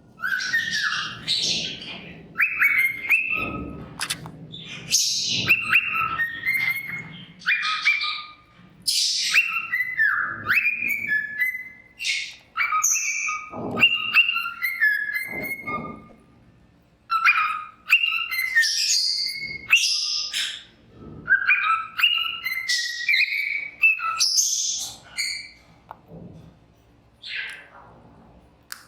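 Male cockatiel whistling and chattering in repeated bouts of stepped, warbling whistle notes mixed with rough chatter, with short pauses between bouts and a few sharp clicks. It tails off to a single call near the end.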